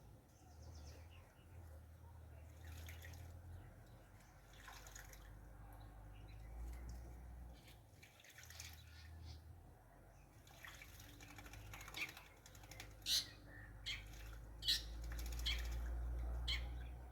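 Mynas splashing in a small clay pot of water, with bird chirps mixed in. There are scattered small splashes and drips, and a run of sharper, louder splashes and calls in the second half.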